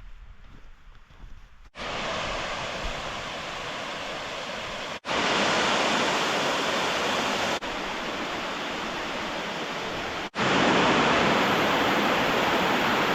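Steady rush of a waterfall, heard in several cut-together stretches at different loudness, loudest from about ten seconds in.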